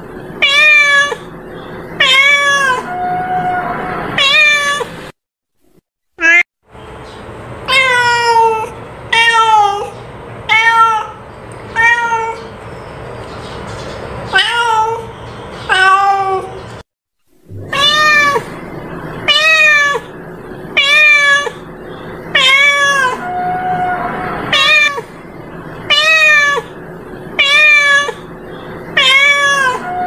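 Domestic cat meowing over and over, short rising-and-falling meows about one every second, broken by two brief silent gaps.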